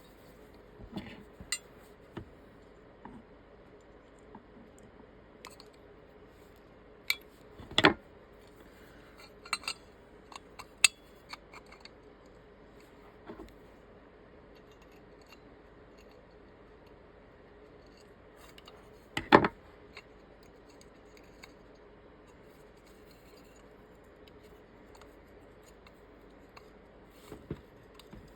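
Scattered clicks and clacks of small switch-box parts being handled and fitted by hand, with two sharper knocks about eight seconds in and near twenty seconds in, over a faint steady hum.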